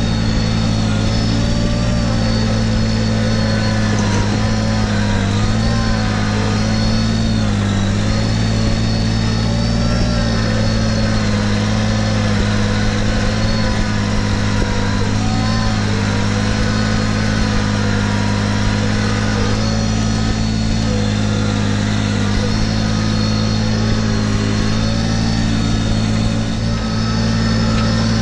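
Kubota BX1880 compact tractor's three-cylinder diesel engine running at a steady speed as the tractor drives along, with a steady high whine above it.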